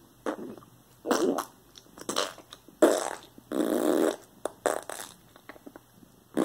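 Mouth-made fart noises imitating diarrhea: about five separate bursts, the longest one about three and a half seconds in.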